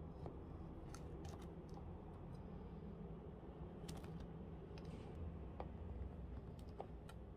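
Large kitchen knife cutting long strips through a starch-coated slab of hazelnut Turkish delight: faint, scattered clicks and soft taps as the blade presses down and meets the tray beneath.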